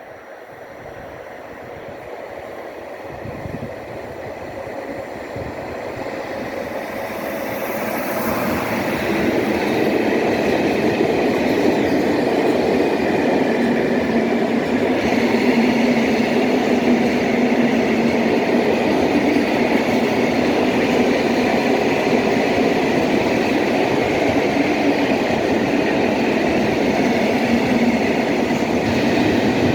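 Freight train hauled by a Siemens Vectron electric locomotive approaching, growing steadily louder over about ten seconds, then the loud, steady rumble and rattle of its Eas and Eanos open wagons rolling past on the rails.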